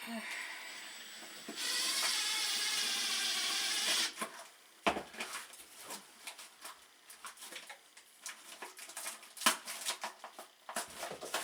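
Power drill running for about four seconds, louder from about one and a half seconds in, then stopping. Scattered knocks and clicks of handling follow.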